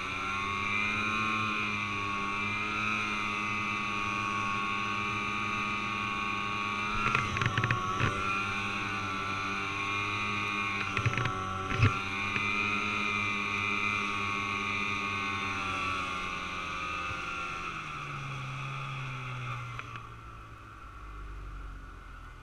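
Snowmobile engine heard from on board, running steadily with its pitch wavering a little, with a few short knocks and clatters about a third and halfway through. Near the end the engine drops in pitch and goes quieter.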